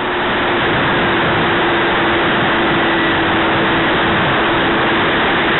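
Loud rush of airflow over the onboard camera of a quarter-scale model aircraft in flight, with the model's motor and propeller giving a steady drone underneath.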